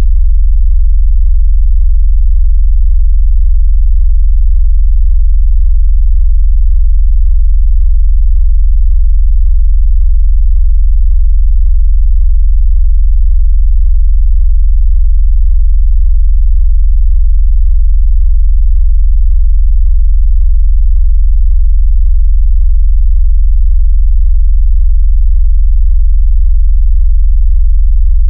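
Loud, steady, very deep electronic bass tone: a generated sine wave below about 100 Hz. It is a phone vibration and speaker water-ejection tone, made to shake the speaker.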